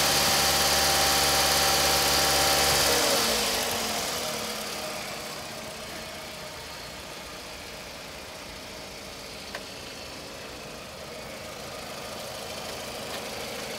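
Toyota RAV4's 2.4-litre 2AZ-FE four-cylinder petrol engine running at raised revs, then the revs fall away about three seconds in and it settles to a steady, quieter idle. A single sharp click is heard near the middle.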